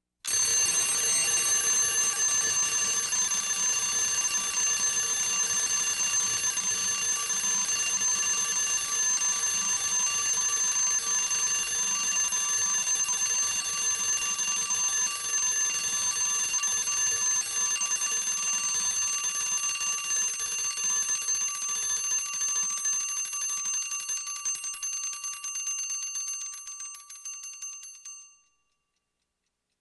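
Mechanical alarm clock bell ringing continuously, the hammer rattling rapidly against the bell, until the clock's spring runs down: near the end the ringing breaks up into slower separate strikes and stops.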